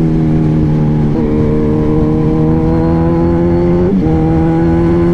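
Kawasaki Z1000 motorcycle's inline-four engine running under way, its pitch slowly rising as the bike gathers speed. The tone breaks briefly about a second in and again about four seconds in, with wind rumbling on the microphone underneath.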